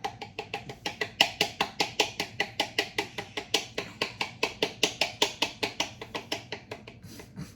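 A kitchen utensil beating rapidly and rhythmically against a mixing bowl, about six sharp knocks a second, as the banana mixture is stirred or beaten.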